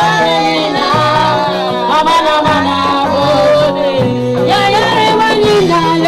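Church praise music: a band playing a song, with steady bass notes changing about once a second under singing voices.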